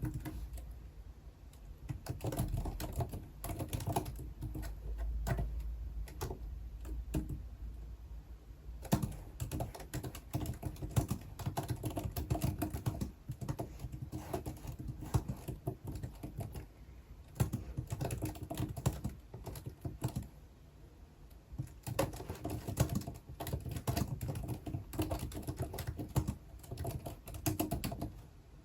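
Typing on a computer keyboard: rapid runs of key clicks in bursts, with short pauses between them.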